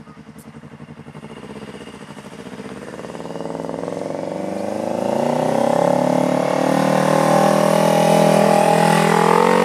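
Cruiser-style motorcycle engine approaching, running steadily and growing louder over about five seconds, then holding loud with its pitch rising slightly near the end.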